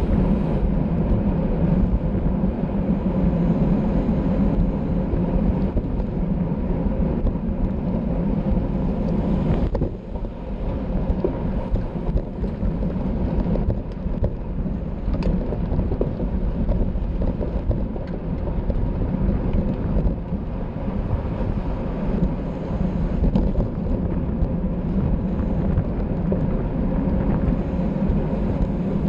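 Steady wind rush on the microphone of a camera riding on a racing bicycle at speed, easing briefly about ten seconds in.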